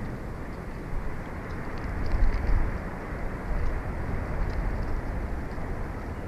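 Wind buffeting an outdoor nest-camera microphone: a steady low rumble and hiss that swells in a stronger gust about two seconds in, with a few faint high ticks.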